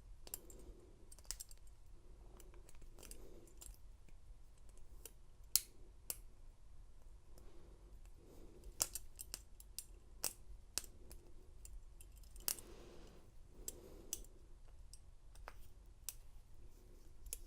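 Irregular small metal clicks and scrapes of a wire pick bent from a key ring working inside a handcuff's keyhole, trying to push back the double-lock bar; a few clicks stand out louder than the rest.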